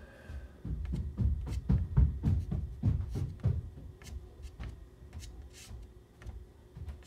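Pastel stick scrubbed back and forth on a pastel board in quick scratchy strokes, about four a second, loudest in the first half and lighter after.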